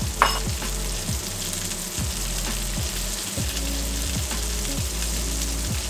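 Beaten eggs and butter sizzling in a hot frying pan, with a sharp clack just after the start, over background music with a steady low beat.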